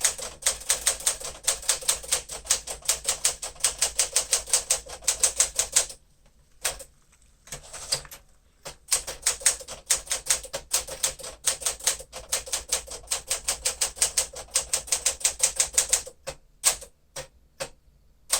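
A 1956 Smith-Corona Clipper manual typewriter being typed on quickly: two long runs of rapid keystroke clacks, broken by a pause of about two seconds in the middle, then a few slower single strikes near the end.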